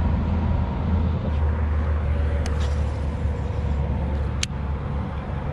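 Wind buffeting a chest-mounted camera's microphone: a steady low rumble, with two sharp clicks, about two and a half and four and a half seconds in.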